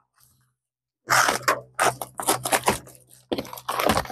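Packing tape being slit with a box cutter and ripped off a cardboard box, about a second in, as a quick run of short, sharp rips and scrapes.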